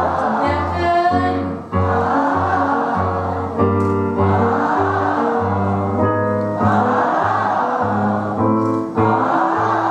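A group of voices singing a vocal warm-up scale in unison with a piano, stepping up and down note by note, phrase after phrase about two seconds each.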